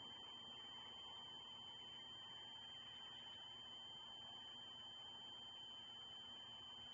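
Near silence: a faint, steady high-pitched whine over a low hiss.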